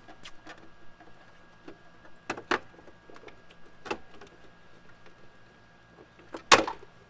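Scattered clicks and knocks of plastic and metal as a car taillight unit is worked loose from the rear door by hand. There is a pair of knocks about two and a half seconds in, another near four seconds, and the loudest, sharpest knock near the end.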